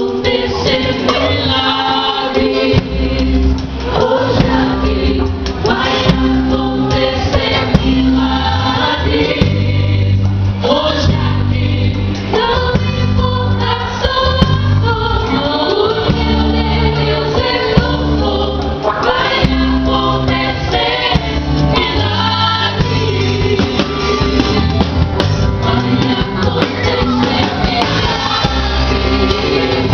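Gospel worship music: a choir singing with instrumental accompaniment and a steady bass line.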